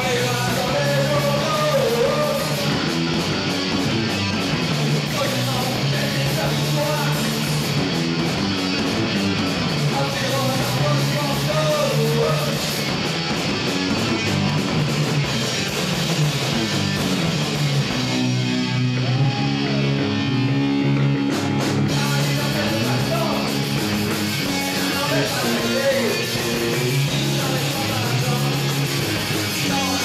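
Live rock band playing: electric guitars and drums over a full, steady wall of sound. About eighteen seconds in, the cymbals and drums drop out for a few seconds under the guitars, then the full band comes back in.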